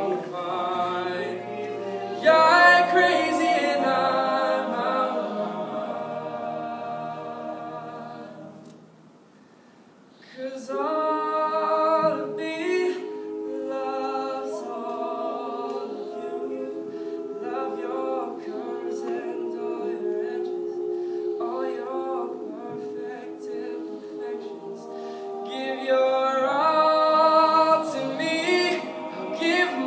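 All-male a cappella group singing: a lead voice over close backing harmonies, with no instruments. About nine seconds in the voices fall almost silent for a second or so, then the singing resumes.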